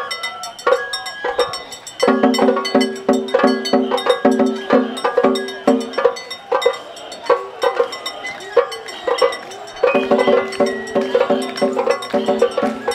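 Matsuri-bayashi festival music: taiko drums struck in a quick steady rhythm, with a shinobue bamboo flute playing over them. It grows louder about two seconds in.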